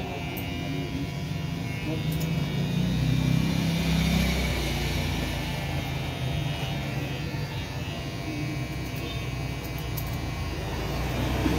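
A motor vehicle passing, a low rumble that swells about three seconds in and then fades, over a steady background hum.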